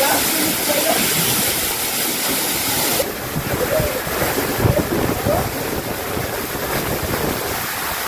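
Waterfall pouring into a shallow pool, a steady loud rush of falling water. About three seconds in the rush turns less hissy and duller.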